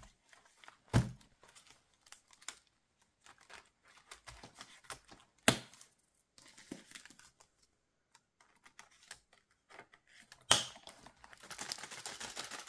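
Ring budget binder being handled: a few sharp clicks and taps from its snap closure and rings, then, near the end, plastic page sleeves rustling as the binder is lifted and flipped through.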